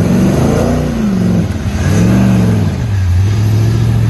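Modified off-road challenge truck's engine revved hard twice, its pitch rising and falling each time, then settling to a steady note near the end.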